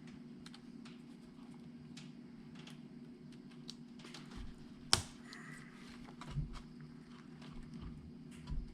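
Scattered light clicks and taps of small plastic parts of a 1/24-scale RC crawler being handled and snapped back together, with one sharper click about five seconds in. A faint steady hum runs underneath.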